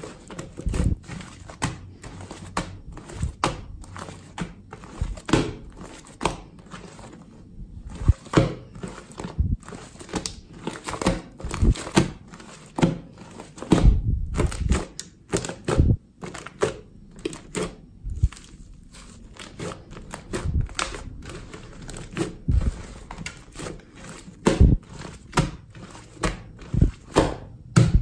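Thick, fluffy shaving-foam slime being kneaded, pressed and poked by hand: irregular sticky clicks and crackly pops several times a second, with a few heavier squelching thuds as the hand presses the slime down against the table.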